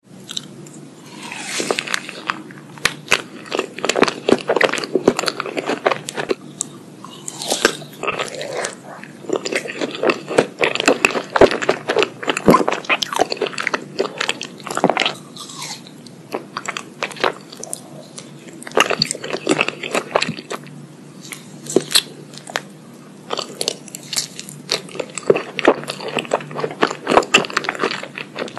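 Close-miked eating sounds: crisp bites and crunchy chewing of crunchy food, coming in runs of sharp crackles with short pauses between.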